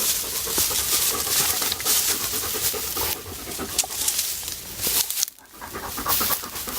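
Dog chewing rosehips pulled from a rose bush: a dense, irregular run of crunches and rustles that breaks off briefly about five seconds in.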